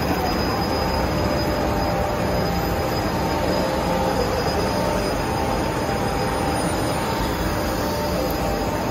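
Inline flexographic printing press running: a steady mechanical noise with a few faint, even whining tones over it.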